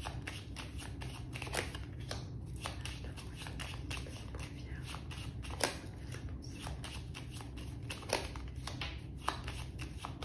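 A deck of playing cards shuffled and cut by hand, with cards laid down one by one: a continuous run of soft, quick card snaps and flicks over a low, steady hum.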